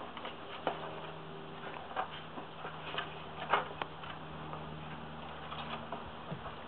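Irregular light taps and knocks of a plywood wobble board on coil springs as Vizsla puppies scramble over it, their paws and claws hitting the wood and the board rocking, over a faint steady low hum.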